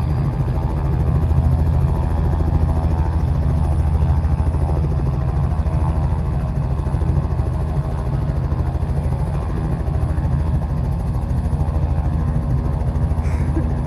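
Robinson R44 light helicopter running on the ground, its rotor turning: a steady, fast rotor beat over a low engine drone.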